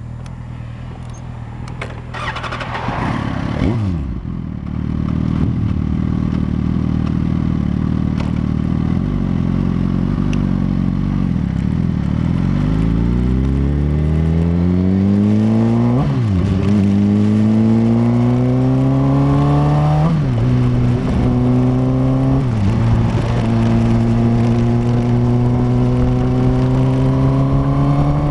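Suzuki inline-four motorcycle engine running at a steady speed, then accelerating hard through the gears: the revs climb and drop back at three upshifts before climbing again near the end. A brief falling rush of noise comes about three seconds in.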